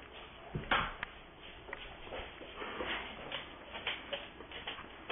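A single thump just under a second in, followed by light rustling and small knocks, like things being shuffled and handled.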